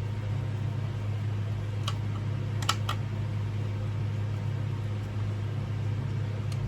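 A steady low hum, with a few light clicks and taps about two seconds in, near three seconds, and near the end.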